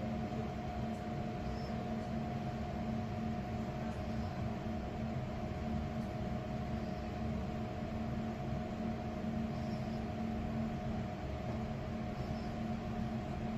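Steady machine hum with a constant low drone and a fainter, higher steady tone over a light hiss.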